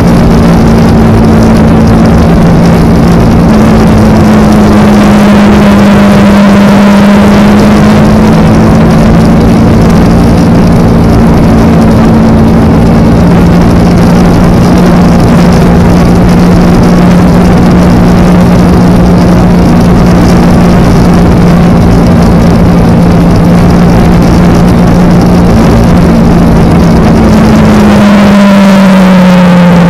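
Kawasaki Ninja parallel-twin motorcycle engine running at a steady cruising pace under heavy wind noise, its pitch dropping near the end as the bike slows.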